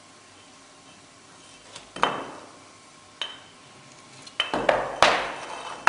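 Steel bars clanking against metal in an induction bar-heating line for forging: about six sharp, ringing metallic strikes at uneven intervals, starting about two seconds in.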